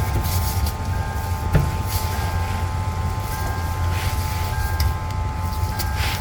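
Steady low mechanical drone with a few steady high tones over it and a short high beep repeating a little more than once a second.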